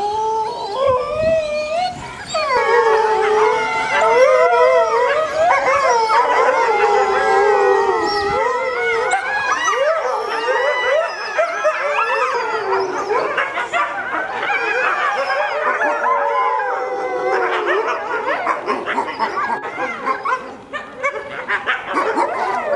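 A family of red wolves, two adults and four ten-month-old pups, howling together as a chorus, many wavering voices overlapping. The group howl was set off by a distant ambulance siren. Near the end the howls break into shorter, choppier calls.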